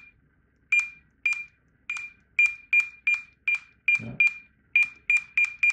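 Datalogic Memor 10 handheld computer giving its short high good-read beep each time its barcode scanner reads a barcode, about a dozen identical beeps in quick succession, two to three a second. A faint thump about four seconds in.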